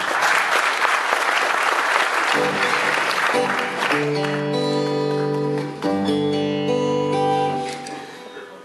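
Audience applauding, dying away as a steel-string acoustic guitar begins slow, ringing chords about two and a half seconds in. The chords sustain, break briefly once, and fade out near the end.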